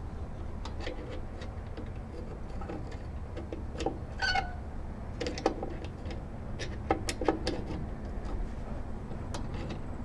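Flat-blade screwdriver probing inside a rusty rear drum brake through the backing-plate adjuster window, feeling for the self-adjuster wheel: irregular light metal clicks and scrapes over a steady low rumble. A brief chirp-like squeak comes about four seconds in.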